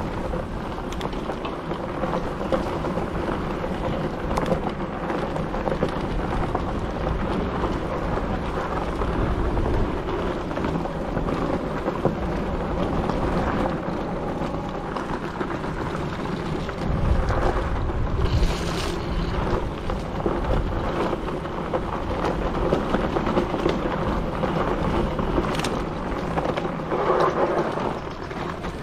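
Electric bike riding fast over a woodland dirt trail: tyres rumbling on packed earth, the bike rattling and jolting over roots and bumps, with wind buffeting the handlebar-mounted microphone. It gets rougher a little past halfway.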